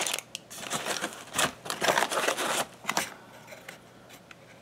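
Packaging being handled: scratchy rustling and crinkling of plastic and cardboard as a coiled power cable is lifted out of a box, in a quick run of bursts that dies down about three seconds in.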